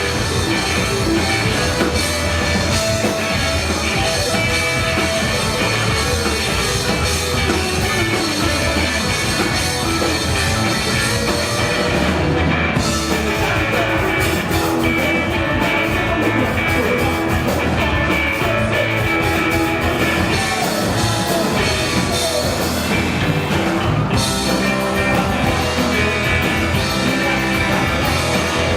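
Live rock band playing a fast song: electric guitars, bass and a drum kit, loud and dense throughout, with the cymbals dropping out briefly about twelve seconds in.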